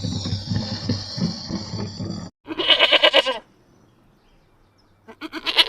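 About two seconds of irregular farmyard noise, cut off sharply, then two wavering bleats from a goat or sheep. The first lasts under a second and the second begins near the end.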